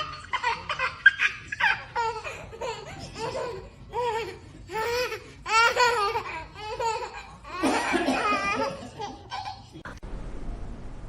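High-pitched laughter in repeated short bursts, breaking off suddenly about ten seconds in to a faint steady hiss.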